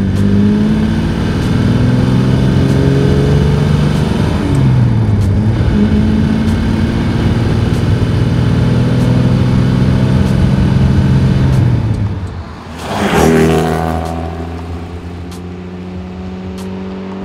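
Maserati 3500 GT's 3.5-litre twin-cam straight-six accelerating, its pitch climbing, dipping briefly about four seconds in, then climbing again for several seconds. Near the end a short loud whoosh, after which the engine holds a steadier note that slowly fades.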